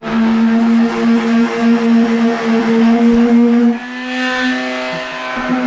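Electric power sander running steadily with a constant motor whine; about two-thirds of the way in, its pitch rises slightly and it gets quieter.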